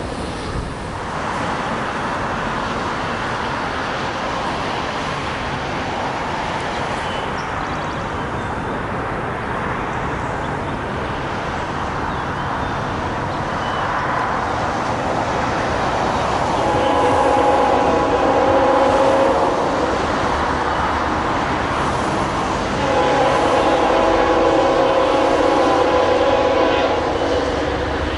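Horn of a distant, approaching CSX GE AC4400CW freight locomotive, two long blasts, the first a little past halfway and the second near the end, as it nears a grade crossing. Before the blasts there is only a steady background rush.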